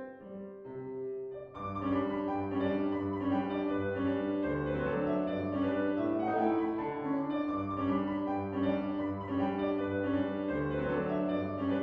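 Solo piano music. A light, sparse passage swells about a second and a half in into louder, fuller playing, with a bass line under the melody.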